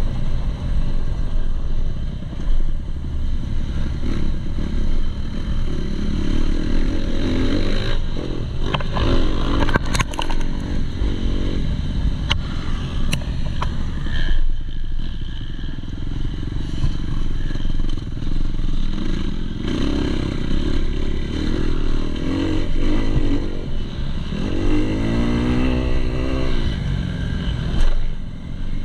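A 2019 Kawasaki KX250's four-stroke single-cylinder engine being ridden hard on a dirt motocross track, its revs rising and falling with throttle and gear changes. There are sharp clicks and rattles about ten to thirteen seconds in, and a strong rising run of revs near the end.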